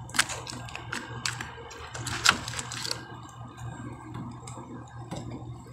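Plastic-wrapped packs of frozen hotdogs being handled: a few sharp crinkles and clacks of stiff plastic packaging, the loudest a little over two seconds in, over a steady low hum.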